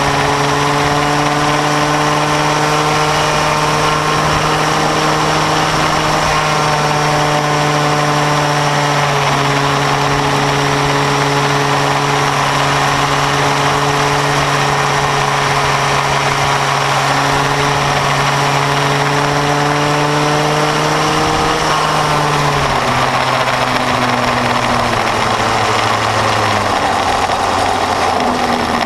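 Bambino go-kart's small two-stroke engine running at a fairly steady pitch over a constant hiss. About 22 seconds in it slows, the pitch dropping in steps.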